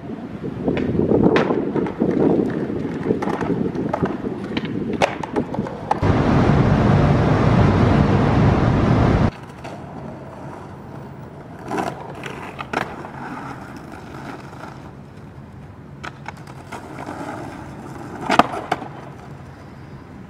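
Skateboard wheels rolling over pavement, broken by sharp clacks of the board's tail popping and the wheels landing, several times. About six seconds in, a loud, even rushing noise runs for some three seconds and cuts off suddenly, after which the rolling is quieter, with a few more clacks.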